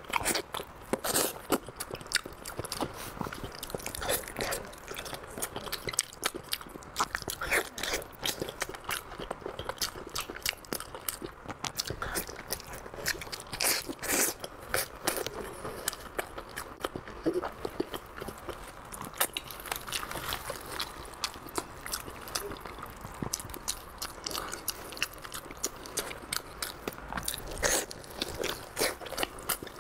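A person biting and chewing glazed braised pork hock, with many irregular short bites and mouth smacks.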